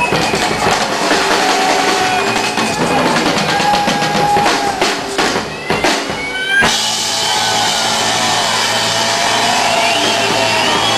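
Live rock and roll band playing loud, with a drum kit beating out quick hits under electric guitar. About six and a half seconds in a sharp crash comes, and the band then holds a steady ringing sound with cymbal wash and fewer separate drum hits.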